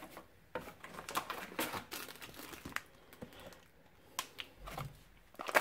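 Plastic beef jerky pouches crinkling as they are handled and lifted out of a cardboard box: a run of irregular crackles, thinning out later, with a soft bump near the end.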